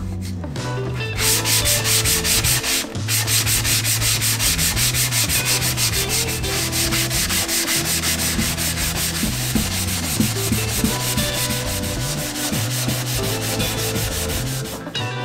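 Hand sanding block with abrasive rubbed quickly back and forth over an ebony box's wooden side, a fast, even run of rasping strokes that starts about a second in and pauses briefly once.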